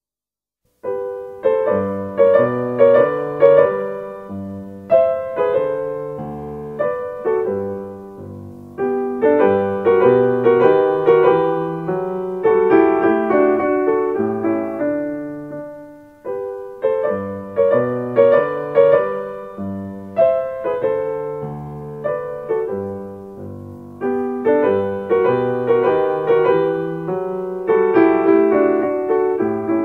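Background piano music: a gentle melody over chords, the notes struck and left to fade, beginning about a second in after a brief silence.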